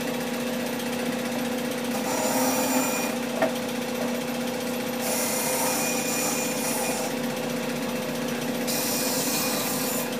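A bench belt-and-disc sander runs with a steady motor hum while a block of 2x4 wood is pressed against the sanding disc in three spells, each adding a hiss of abrasive on wood. There is one brief knock about three and a half seconds in.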